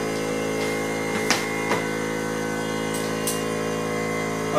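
Steady electrical hum, one even drone made of many stacked tones, with a few light clicks and taps.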